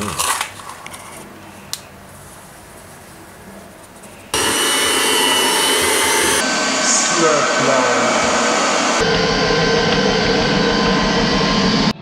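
Electric hand mixer with dough hooks running steadily in bread dough, starting abruptly about four seconds in and changing tone abruptly twice after that; before it starts, only faint clatter.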